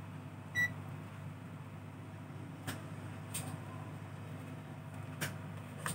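A digital multimeter gives one short beep, then the meter and its test probes click and tap a few times as they are handled, over a steady low hum.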